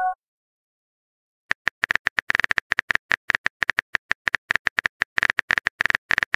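Simulated phone-keyboard tap clicks as a chat message is typed out, quick and uneven, starting about a second and a half in. Right at the start, the tail of a chime of a few steady tones cuts off.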